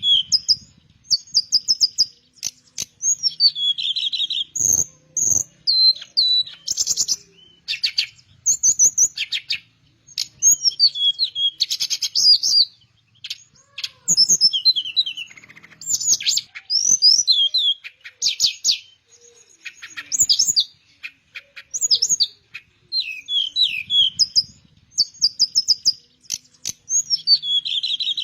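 Teledekan, a Malay blue flycatcher, singing in quick varied phrases. The song mixes clear sweeping whistles with rapid trills and chirps, and comes in short bursts with brief pauses between them.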